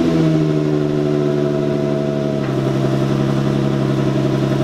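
2004 Infiniti G35 coupe's 3.5-litre VQ35 V6 idling just after start-up, heard at the tailpipe with the exhaust cutout valve closed (quiet mode). The idle eases down and drops a step about two and a half seconds in, settling to a steady idle.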